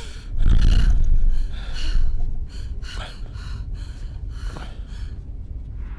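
Rapid, heavy panting, about two or three breaths a second, with a low rumble of the camera being handled in the first second and a half.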